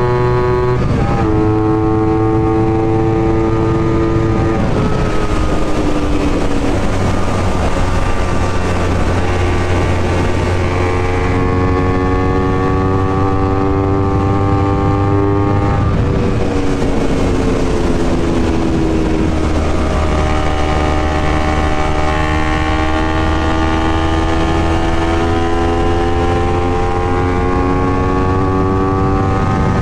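Honda CBR250RR motorcycle engine and exhaust under way, its note climbing slowly as it pulls, with the pitch dropping about a second in, again after four seconds, and over a few seconds past the middle before climbing again.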